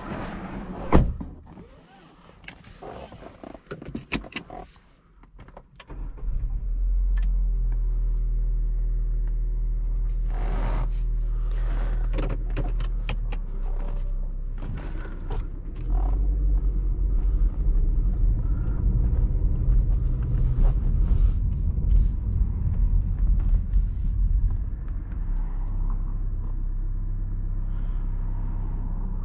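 Car door shutting with a thud about a second in, followed by a few interior clicks. Then the 2016 Honda Civic's engine starts at about six seconds and runs steadily, heard from inside the cabin, growing louder from about sixteen seconds as the car moves off.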